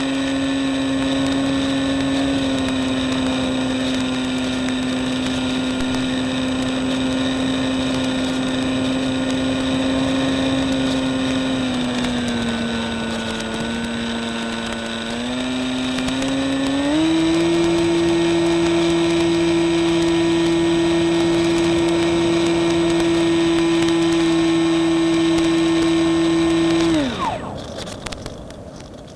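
Electric motor and propeller of a Reely Phönix RC model plane running under power as a steady whine. The pitch shifts with the throttle: a little lower for a few seconds, then up to a higher steady pitch. Near the end the throttle is cut and the whine falls away to stop, leaving crackly noise.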